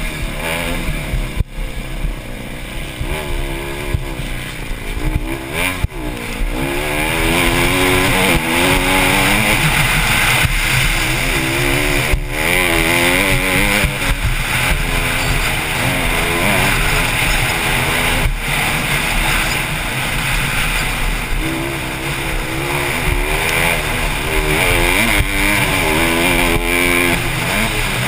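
Honda CRF150R's four-stroke single-cylinder engine revving up and down again and again as the dirt bike is raced around the track, with a few sharp knocks.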